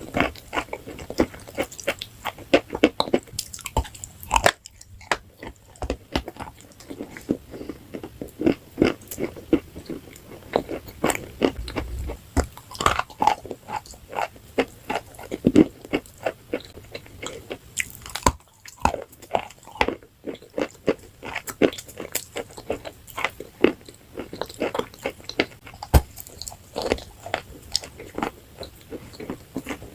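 Close-up crunching as a person bites and chews brittle, crunchy food, with dense irregular crunches and a couple of brief pauses.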